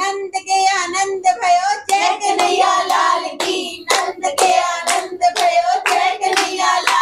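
Children singing together, with hands clapping along.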